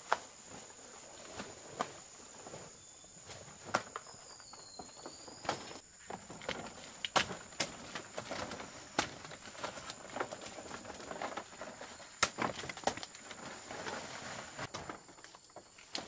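Dong leaves being picked in thick undergrowth: irregular sharp snaps of stalks breaking off, with rustling of the large leaves and footsteps through the vegetation.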